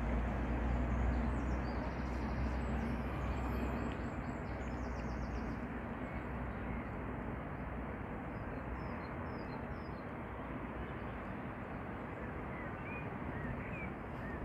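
Distant city noise, a steady wash with a low rumble that fades after the first five or six seconds, and a few small bird chirps in the second half.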